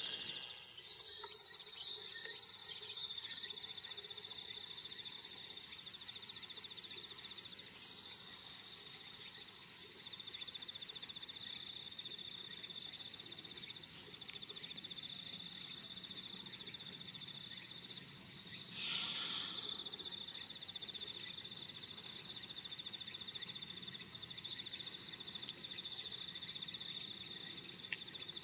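A steady, high-pitched chorus of insects, unbroken throughout, with a short burst of noise about two-thirds of the way through.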